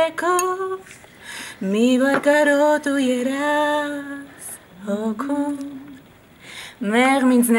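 A woman singing unaccompanied, holding long notes in several phrases with short breaks between them.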